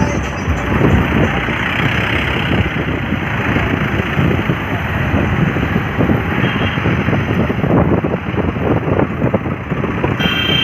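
Diesel farm tractor engines running as a column of tractors drives past close by, a dense, steady engine noise.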